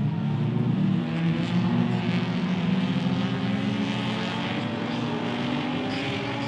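Several folkrace cars' engines running hard on a dirt track, their pitch rising and falling as the drivers accelerate and lift off.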